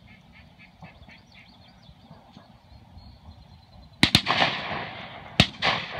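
Faint quacking, then two sharp gunshots about a second and a half apart, each followed by a rolling echo.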